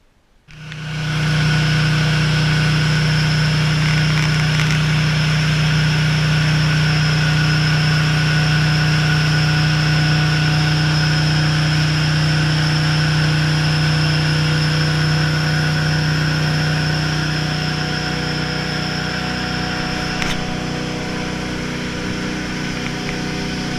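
A boat's engine running at a steady speed, a loud, even hum that eases off slightly over the last few seconds.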